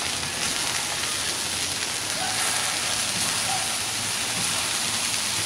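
Quarter-pound ground elk meatballs sizzling steadily on the oiled steel top of a Blackstone griddle set to high heat, as more meatballs are set down on it.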